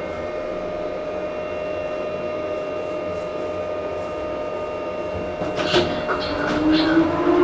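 Otis elevator car running with a steady hum and a held whine. About five and a half seconds in, the drive tone drops away, a few clicks and clunks follow as the car stops, and the doors begin to slide open with a rising motor whine.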